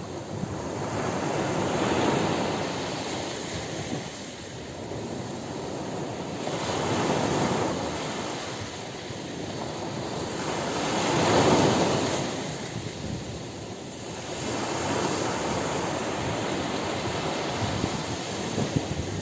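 Ocean surf breaking on a beach: waves come in as swelling rushes of noise every four to five seconds, the loudest about eleven seconds in, with a crackling wash near the end.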